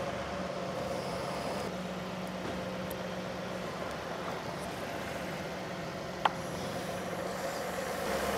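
A steady mechanical drone, engine-like in character, with a single short sharp click about six seconds in.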